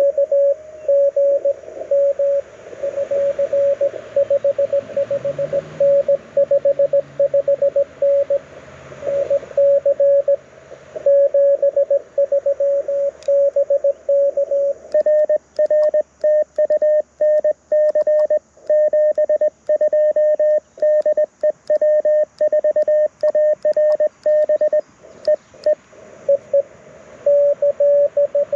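Morse code (CW) tones from a QRP ham radio transceiver, an LNR Precision Mountain Topper MTR4B: a single steady pitch keyed on and off in dots and dashes, over faint receiver hiss.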